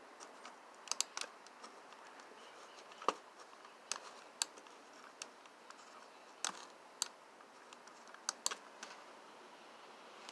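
Faint, irregular light clicks and taps, about a dozen spread over several seconds, some in quick pairs, from handling and clicking the computer setup's controls.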